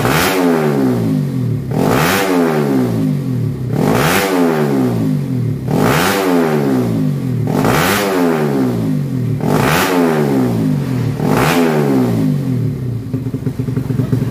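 Race-tuned four-stroke underbone motorcycle engine revved in repeated throttle blips, about seven of them roughly two seconds apart, each rising quickly in pitch and falling back, before settling to a steadier idle near the end.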